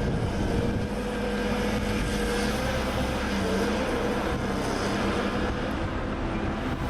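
Heavy land-clearing machine's engine running steadily, with a droning hum that wavers slightly in pitch.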